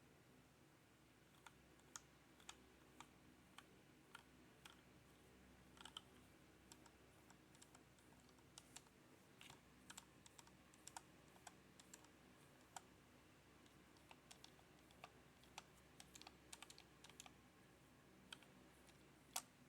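Sparse, irregular key clicks from a HyperX Alloy Origins Core mechanical keyboard with red linear switches, single clicks and small clusters with gaps between them, one sharper click near the end.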